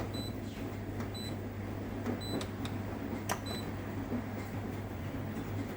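Control panel of a Rex-Electrolux RJ 7160 TA washing machine beeping as its option buttons are pressed: four short high beeps about a second apart, with a few clicks from the buttons, over a steady low hum.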